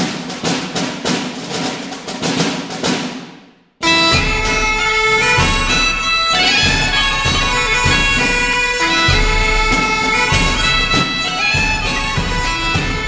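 Background music: a drum beat for the first few seconds, then, about four seconds in, an abrupt switch to a loud sustained melody of held notes over a steady drone.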